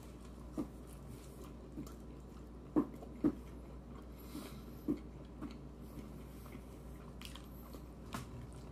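A person biting into and chewing a fried fish sandwich, faint and soft, with no crunch from the soggy breading. A few short clicks stand out from the chewing.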